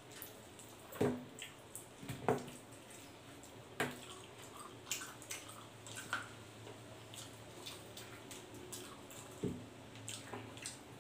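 Close, wet eating sounds: chewing and lip-smacking on roast pork leg, with scattered small clicks and a few louder smacks about one, two and four seconds in and again near the end.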